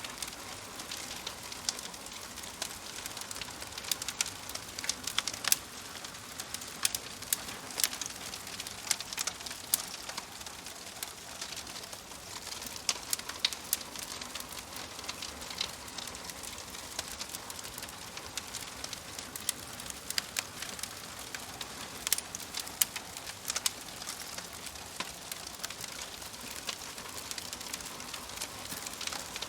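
Wood fire crackling in a wood-burning stove: a steady hiss of burning with frequent sharp, irregular pops and snaps, busiest in the first half and again a little past two-thirds of the way through.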